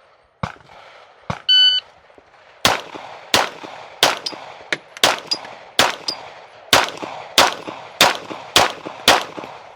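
A shot-timer beep about a second and a half in, then a Glock pistol fired as a steady string of about a dozen shots, each with a short echo: a timed string of fire in a GSSF match.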